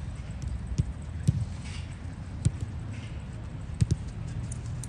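Footballs being kicked and played on an artificial turf pitch during a passing drill: about half a dozen sharp thuds at uneven spacing, over a steady low rumble.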